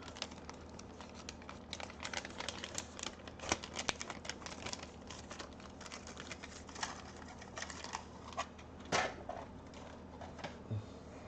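Small parts and plastic packaging being handled at the workbench: a run of irregular light clicks, taps and crinkles, with one sharper click about nine seconds in.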